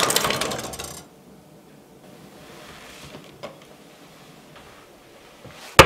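A metal pot or pan struck hard, its clang ringing out and fading over about a second. Then it is quiet apart from a faint click, until a single sharp bang near the end.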